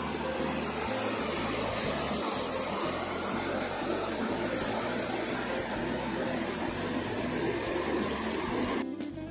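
Steady rush of river water pouring over a low weir. It cuts off suddenly near the end, and acoustic guitar music begins.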